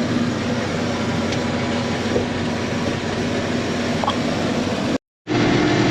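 International Harvester combine running steadily under load, a constant diesel hum over a broad mechanical rush. Near the end the sound breaks off for a moment and a steadier, higher engine hum takes over.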